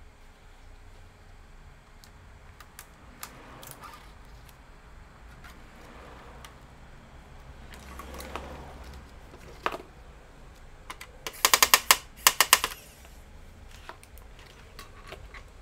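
Hand work on laptop parts: scattered light clicks and taps of small tools and plastic and metal pieces being handled. Near the end come two short bursts of rapid clicking, the loudest sounds.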